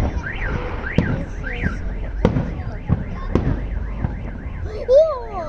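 Fireworks going off in sharp bangs, about five of them, over a car alarm wailing up and down, its warble speeding up partway through. A brief gliding cry sounds near the end.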